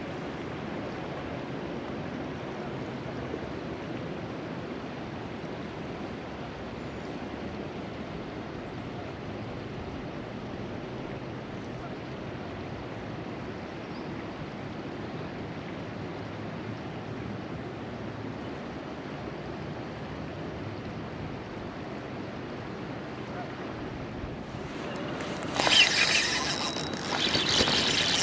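Steady rush of river water. Near the end, a sudden run of much louder, sharp noises breaks in.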